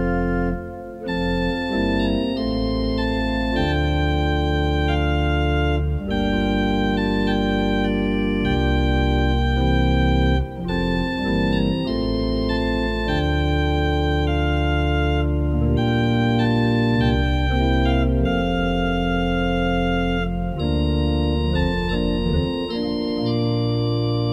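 Organ music: held chords that change every second or two over deep, sustained bass notes.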